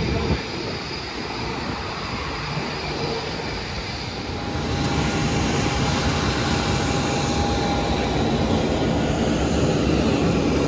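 Jet airliner noise on an airport apron: a steady rushing roar with a faint high tone, louder from about halfway through.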